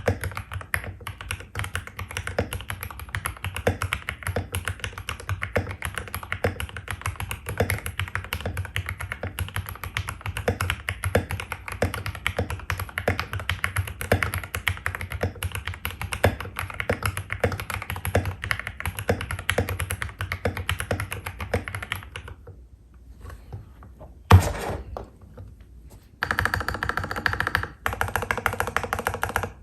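Mechanical keyboard typing on stock Gateron Pro Red linear (45 g) switches in an aluminium-plate Royal Kludge RK68 with PBT keycaps, a steady run of keystrokes. After about 22 s the typing stops, one louder thump comes a couple of seconds later, and near the end the key presses resume in a faster, denser run.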